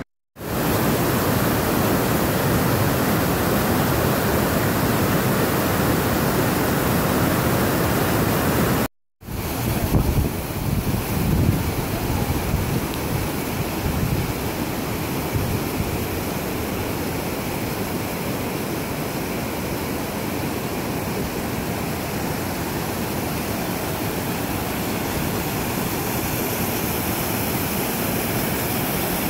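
Steady rushing of waterfalls and cascades. It drops out briefly about nine seconds in.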